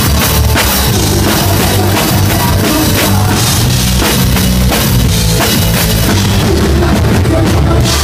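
Live rock band playing loud, with the drum kit and cymbals hitting hard and up front, heard from on stage right beside the drums.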